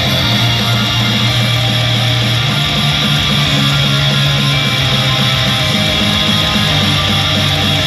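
Loud rock-style idol pop backing music driven by strummed electric guitar, with sustained bass notes and no singing, played over a live venue's sound system.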